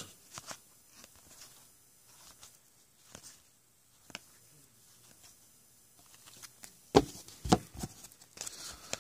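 Faint rustling and sliding of glossy Topps Platinum trading cards being shuffled and sorted by hand, with a few sharp taps near the end.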